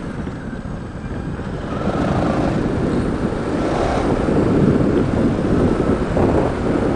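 KTM adventure motorcycle riding along a gravel road, its engine rumble mixed with wind rushing over a helmet-mounted camera's microphone. The noise grows louder about two seconds in.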